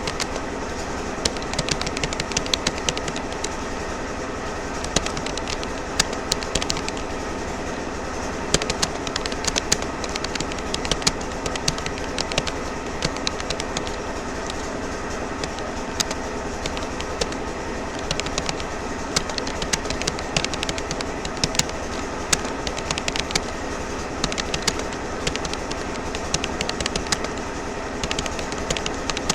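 Rapoo computer keyboard keys clicking in an uneven stream, several keystrokes a second, as someone touch-types, over a constant background hum.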